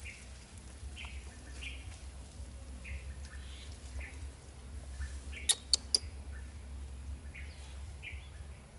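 Short high chirping calls repeating about once or twice a second. About halfway through come three sharp clicks in quick succession, the loudest sounds here, over a steady low rumble.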